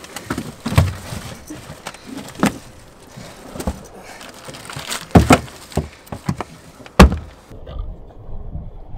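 Knocks and thumps from a boat's in-deck fish box as a cobia is stuffed into it and the hatch lid is handled, the loudest about five seconds in and again at seven seconds.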